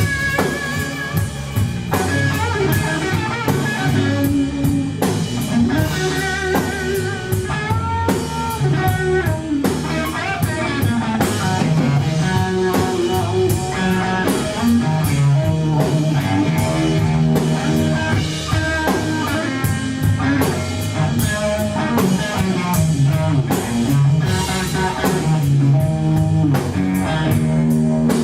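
Live blues-rock trio playing instrumentally: electric guitar playing a lead line with wavering, bent notes over bass guitar and a drum kit.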